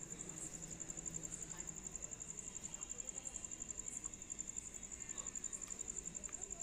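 A steady, high-pitched insect trill, pulsing rapidly and evenly, with a few faint clicks near the end.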